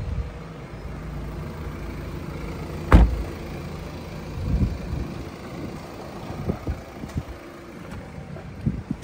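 A Volvo XC90's front door shut with one sharp slam about three seconds in, over a steady low hum, followed by a few softer knocks and bumps.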